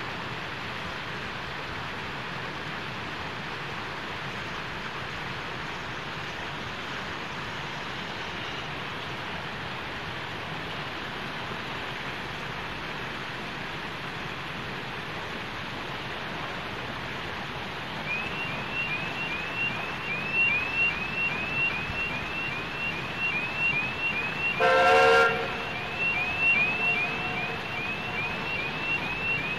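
Narrow-gauge steam locomotive whistle blown once, a short blast about 25 seconds in. From about 18 seconds in, a level-crossing warning alarm chirps about three times a second. Before that there is only a steady hiss.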